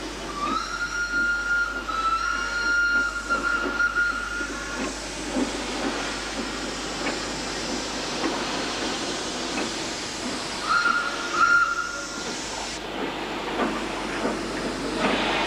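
Steam locomotive whistle blowing, one long blast of about four seconds with a brief dip, then a shorter blast about ten seconds later, over a steady hiss of escaping steam.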